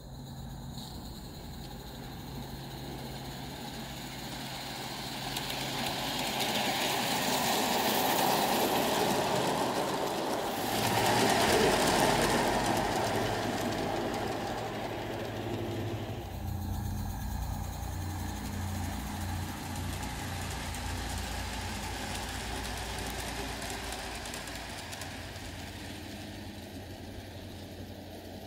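45 mm gauge garden model train running on the track: rolling noise swells to a loud close pass about eleven seconds in, then settles into a steadier low rumble as it runs on.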